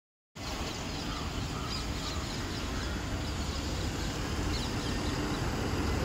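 Mobile crane's engine running steadily under load as it lifts a tracked excavator, a low, even rumble. Faint bird chirps sound above it.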